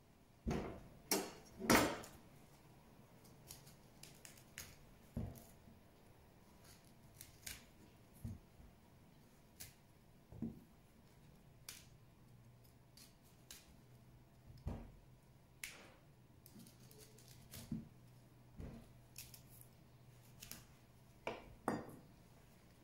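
Knife cutting a purple cauliflower into florets on a plastic cutting board: scattered, irregular clicks and knocks of the blade and florets against the board, with a few louder knocks in the first two seconds.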